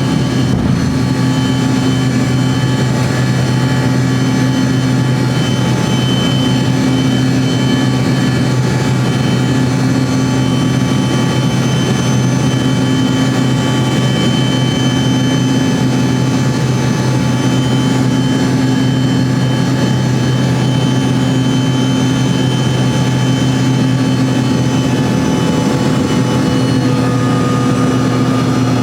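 Aircraft engines running steadily, heard from inside the cabin of a small airliner: an even drone with a low hum that comes and goes about every two seconds.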